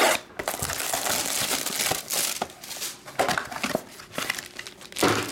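Plastic shrink wrap crinkling and tearing as it is stripped off a small trading-card box, with the cardboard box flaps rustling open; a few sharp, louder rustles, the strongest near the end.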